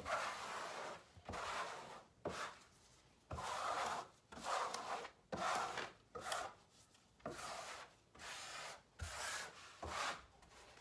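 Flat steel trowel scraping across a fabric sheet waterproofing membrane bedded in modified thin-set. It makes about a dozen firm sweeping strokes, roughly one a second, pressing out the excess mortar so the membrane bonds to the shower pan.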